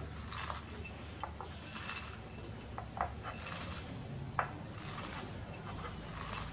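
Dried herb leaves crushed and rubbed by hand on a porcelain plate: dry crackling rustles about every second and a half, with a few sharp clinks against the plate.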